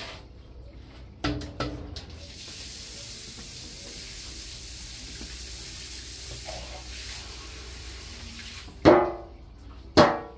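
Wet swishing of cake batter being folded by hand in a stainless steel mixing bowl. Near the end come two loud ringing metallic knocks: a floured metal cake pan being tapped.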